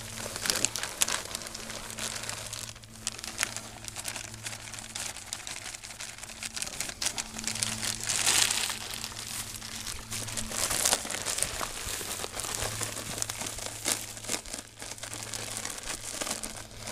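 Plastic zip bag crinkling and rustling as it is handled, squeezed and kneaded by hand to mix casting powder with water. The crinkling comes in uneven bursts, loudest about eight seconds in, over a steady low hum.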